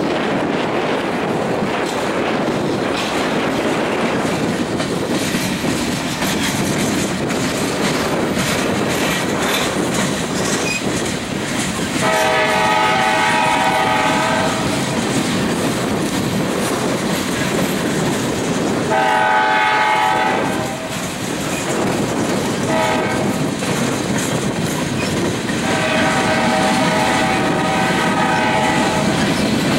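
Freight cars rolling past with a steady rumble and clatter of wheels on rail. Midway through, a locomotive air horn farther up the train sounds two long blasts, a short one and a long one: the standard signal for a grade crossing.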